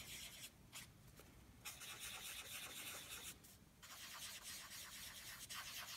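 Faint soft rubbing of a pad working chalk pastel onto paper, in long strokes broken by brief pauses.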